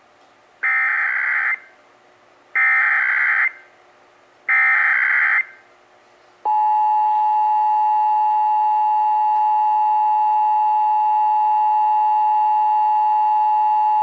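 Emergency Alert System Required Monthly Test tones: three one-second bursts of screeching SAME digital header data, then, about six and a half seconds in, the steady two-tone EAS attention signal (853 and 960 Hz sounded together) begins and holds.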